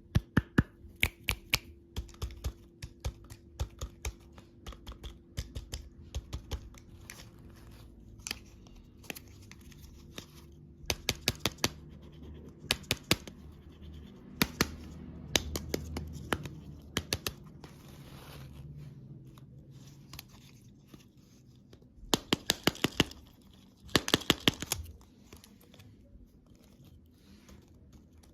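Candy packaging being handled and opened: a run of sharp clicks and taps, some in quick clusters of four or five, with a burst of tearing about three-quarters of the way through.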